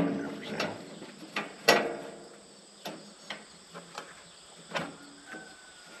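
Scattered metal clanks and knocks as a Wood-Mizer LT35 sawmill's band blade is handled on its wheel during a blade change, the loudest a little under two seconds in.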